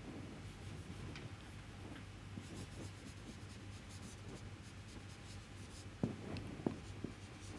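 Marker pen writing on a whiteboard: faint scratchy strokes as formulas are written, with a couple of sharper ticks near the end.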